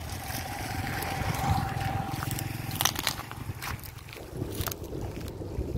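Field crabs clicking and scrabbling against each other and a plastic basin as a crab is dropped in and the basin is pushed through the water, with a few sharp clicks about halfway through. A low rumble of wind on the microphone and a faint steady hum lie underneath.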